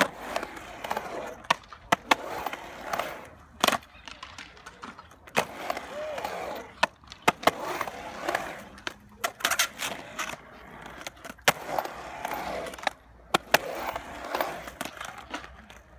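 Skateboard wheels rolling on a concrete bowl, the rumble swelling and fading as the rider carves the walls, with many sharp clacks of the board and trucks hitting the concrete.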